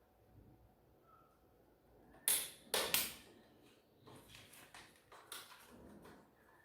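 Plastic parts of a 12A toner cartridge being handled and fitted back together: three sharp knocks and clicks between about two and three seconds in, then lighter clicks and rustling.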